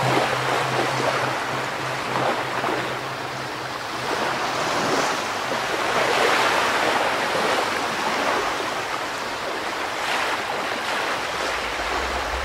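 Ocean surf washing in slow swells, mixed with soft, calm background music; a low bass note is held for the first couple of seconds and another comes in near the end.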